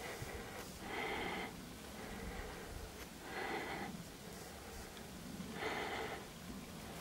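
A person breathing close to the microphone, three audible breaths about two seconds apart.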